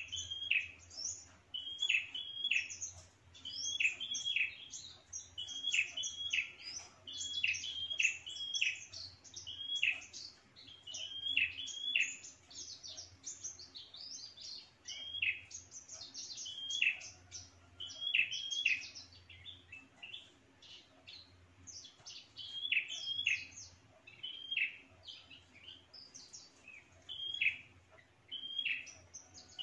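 Caged red-headed prenjak calling over and over: sharp, chirping phrases about every one to two seconds, with quick high notes in between. This is the territorial call used as a lure (pikat) to draw in wild prenjak.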